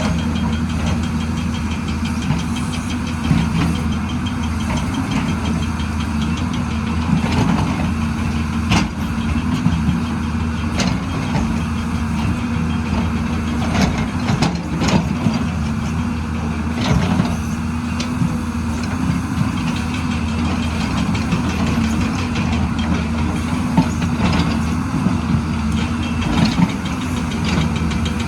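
Excavator's diesel engine running steadily, with a few short, sharp metallic clanks about nine, fifteen and seventeen seconds in.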